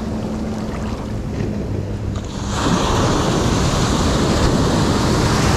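Ocean surf at the shoreline, heard from the camera at water level. A steady wash of water is followed, about two and a half seconds in, by a wave breaking close by, whose rush grows louder and holds.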